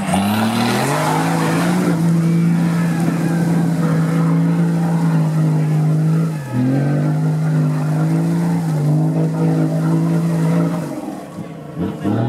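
Modified Nissan Patrol off-road vehicle's engine revving hard and held at high revs as it pulls through a deep muddy rut. The revs drop briefly about six seconds in and again near the end, then climb back.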